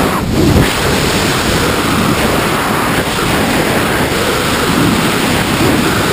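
Freefall wind rushing and buffeting over the camera's microphone during a tandem skydive: a loud, steady roar of noise.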